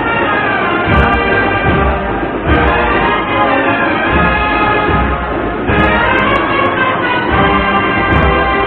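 Agrupación musical (cornets and brass with drums) playing a Holy Week procession march, with sustained brass chords over a steady drum beat.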